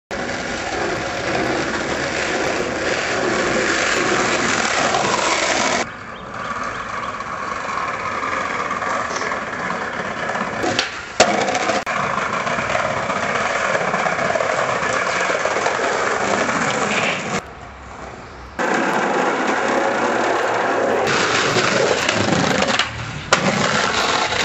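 Skateboard wheels rolling over tarmac and brick paving, a steady gritty rumble that breaks off and changes abruptly several times. A sharp knock stands out about eleven seconds in and another near the end.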